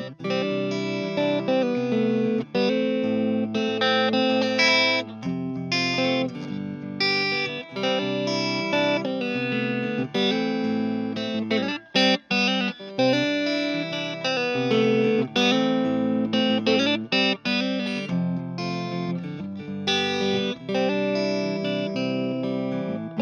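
Clean electric guitar, a 1980 Gibson RD Artist, playing picked notes and chords through a MuFx BoosTron 3 boost pedal while its brightness knob is swept, changing the amount of treble in the tone.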